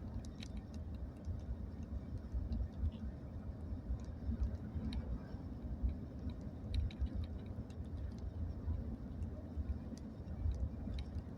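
Steady low road rumble heard inside a moving vehicle's cabin, with scattered light ticks and rattles at irregular intervals.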